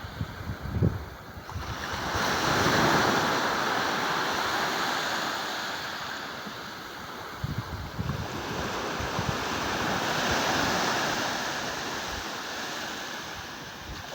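Ocean surf: a wave surges in about two seconds in and slowly washes back, and a second, gentler swell builds near the end. Short low gusts of wind buffet the microphone near the start and in the middle.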